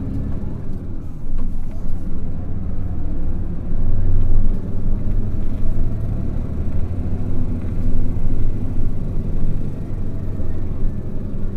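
Hino KL-HU2PMEK diesel city bus under way, a steady low engine drone with the engine note rising and falling, louder about four and eight seconds in.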